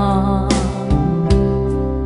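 Background music: held chords over a low bass line, with a beat about every 0.8 s.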